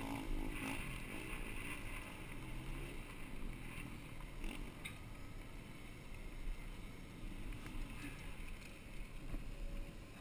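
Mountain bike rolling over dry dirt and gravel, heard from a helmet-mounted camera: low wind rumble on the microphone and tyre noise, with a few short sharp rattles from the bike.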